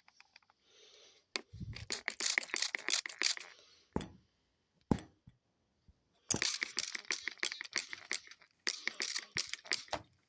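Dove bathing, splashing water with rapid wing flutters in two bouts of about two to three seconds each, with a couple of single splashes or knocks between them.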